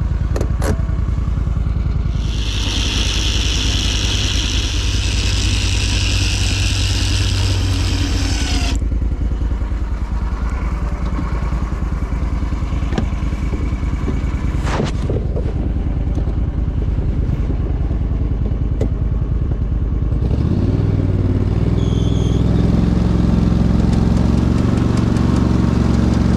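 Argo amphibious ATV's engine running steadily as the machine drives. A loud high hiss overlies it for about six seconds near the start, and the engine note rises for the last several seconds.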